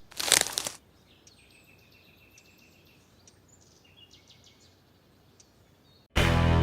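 A short, loud rush of noise, then faint bird chirps and short calls over a quiet background; loud rock music with guitar cuts in near the end.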